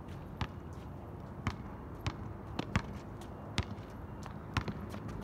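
Basketball bouncing on an outdoor asphalt court: sharp, irregularly spaced thuds, about eight in five seconds, over a faint steady low hum.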